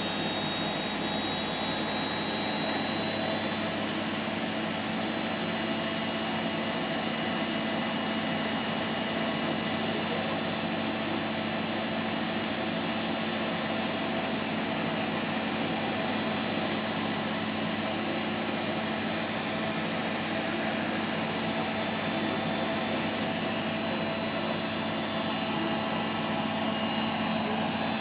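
Beko Eco Care WMA 1510 W washing machine in its final spin: a steady whir of the spinning drum and motor, with a constant whine held throughout.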